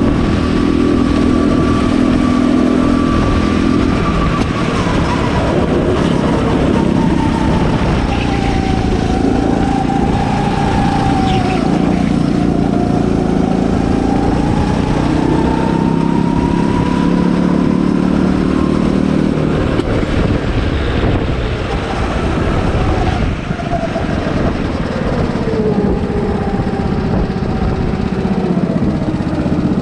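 Go-kart engine heard from the driver's seat, running hard through a lap: its pitch holds for a few seconds, drops as the kart slows, climbs back up over several seconds, then dips and rises again near the end.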